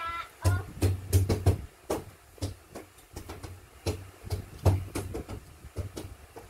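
A child beatboxing: deep kick-drum thumps paired with sharp snare- and hi-hat-like clicks in an uneven beat, tightly bunched in the first second and a half, then more spaced out.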